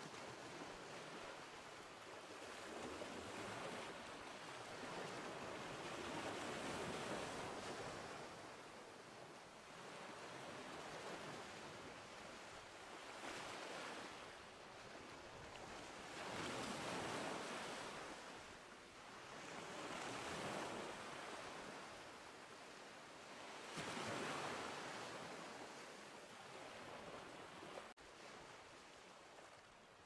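Ocean waves washing onto a beach, a soft rushing that swells and falls away every few seconds.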